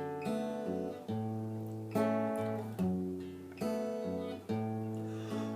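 Acoustic guitar playing chords, a new chord struck about once a second and ringing down before the next.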